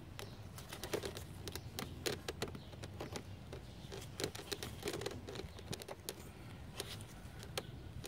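Handling noise: irregular light clicks and taps with some rustling from hands working among the wiring at the connector.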